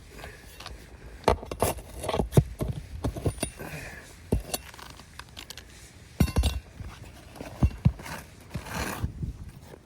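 Asphalt roof shingles being handled and worked into place by hand: irregular knocks, clicks and short scrapes, with a longer rustling scrape near the end.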